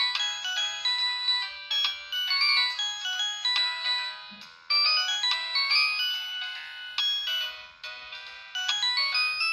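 Samsung SGH-T809 mobile phone playing a polyphonic ringtone melody, quick bright notes with no bass. The melody breaks off briefly about four seconds in, then starts again.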